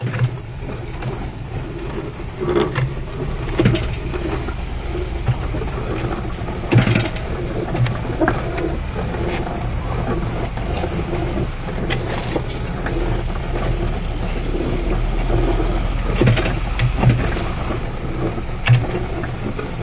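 Concrete pan mixer running steadily, its paddles churning through a wet red colour-layer mix for paver blocks, with a sharp knock every few seconds.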